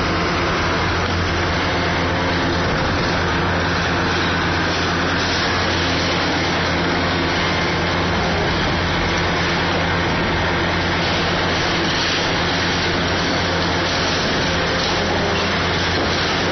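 Diesel engine of a Kobelco SK500 hydraulic excavator running steadily under load, a constant low hum with dense mechanical noise over it.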